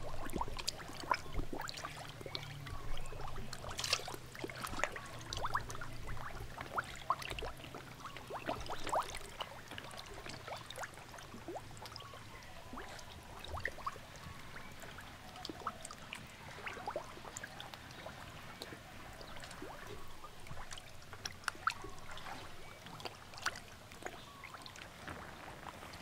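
Pond water trickling and splashing lightly: many small irregular drips and plops over a soft hiss. A low steady hum sits under it for the first half and then fades out.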